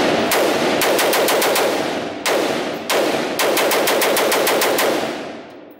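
PSA JAKL rifle fired in rapid strings of shots, several a second, with short breaks about two and three seconds in, ringing in the hall. The firing stops about five seconds in.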